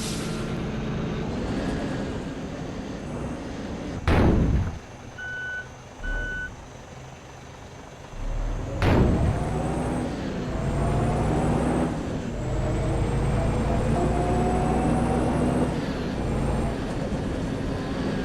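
Bus engine running, its note rising and falling repeatedly, with a loud air-brake hiss about four seconds in and again about nine seconds in. Two short beeps sound between the two hisses.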